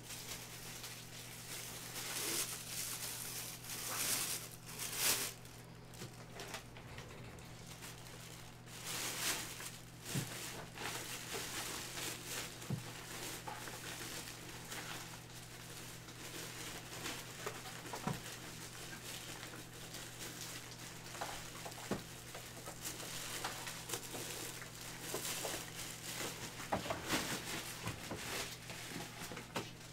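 Scattered handling noises (rustling, light knocks and scrapes) over a steady low electrical hum.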